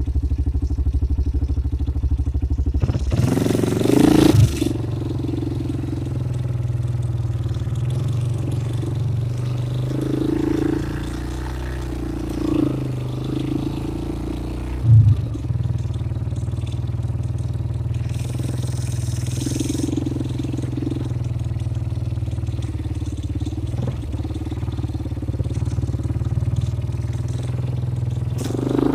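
ATV engine running steadily, with a brief louder noisy burst about three to four seconds in and a single knock about halfway through.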